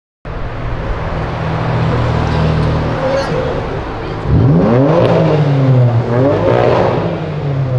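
BMW M3 F80's twin-turbo inline-six running, then accelerating hard about four seconds in, its pitch climbing and dropping back twice.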